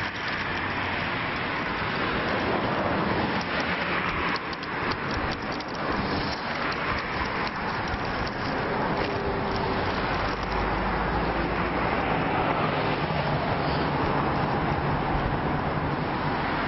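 Steady outdoor street noise of road traffic, with a low rumble building from about the middle on, and short crackles as a fast-food paper bag and burger wrapper are handled.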